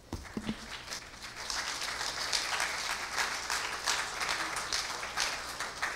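Church congregation applauding, swelling over the first second and a half, then holding steady.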